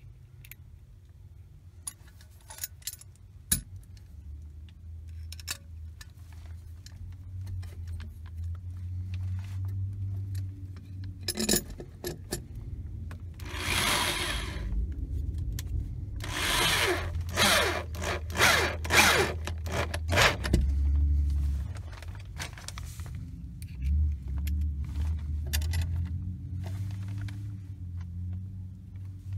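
Cordless drill-driver running in spurts, driving screws through a metal electrical junction box into a wooden floor joist. A few handling clicks come first, then the motor hum, with harsh scraping bursts partway through and again a little later as the screws bite.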